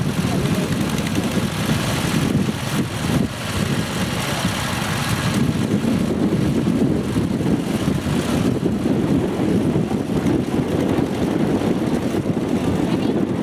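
Two-wheel walking tractor (motoculteur) engine running steadily.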